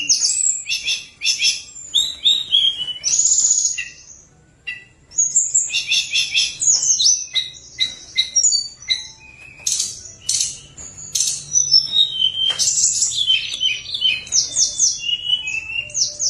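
Caged tledekan gunung songbird singing a loud, varied song of rapid high chirps, trills and whistles, with a brief pause about four seconds in and some longer falling whistles near the end.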